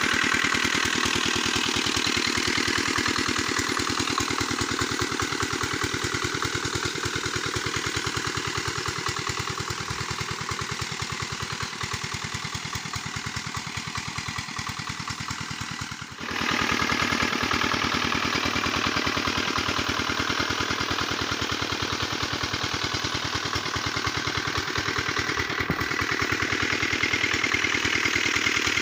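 Small single-cylinder stationary diesel engine running steadily at a fast even beat, driving the power spray pump for pesticide spraying. There is a brief sudden drop about halfway through.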